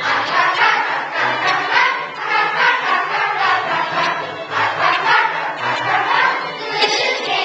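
A choir singing a song together.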